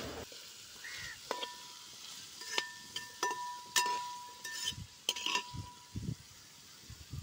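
A perforated metal spatula stirring shallots and sliced onions in a large metal pan, knocking and scraping against the pan. Each knock sets the pan ringing briefly with a clear tone, several times a second or so apart.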